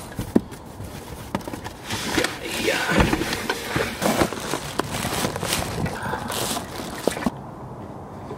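Plastic bags rustling and items knocking as bags and a box are lifted out of a car's trunk, with scattered clicks and thuds; the rustling dies down about seven seconds in.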